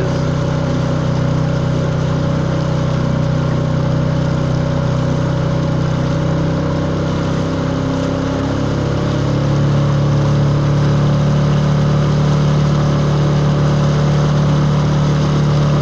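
A 4 hp Tohatsu four-stroke outboard motor running steadily, pushing a square-back canoe, with water rushing past the hull. About nine seconds in, the engine note changes and gets a little louder as the motor picks up.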